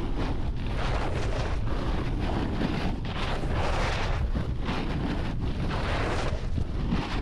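Wind buffeting the microphone in a steady low rumble during a fast snowboard descent, with the board's edges scraping over the packed snow in repeated swells of hiss as it turns.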